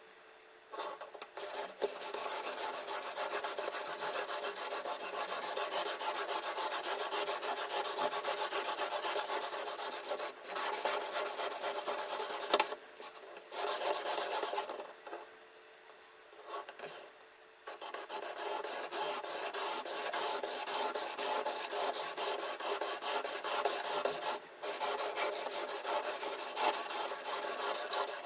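Abrasive sharpening plate on a fixed-angle knife sharpener's guide rod, scraping back and forth along a steel knife blade's edge in rapid strokes. The scraping stops a few times for short breaks.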